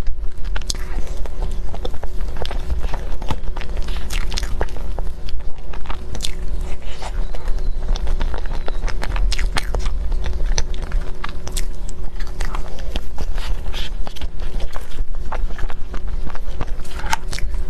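Close-miked eating of a soft mille-crêpe cake: biting and chewing with many quick, irregular wet mouth clicks and smacks, over a steady low hum.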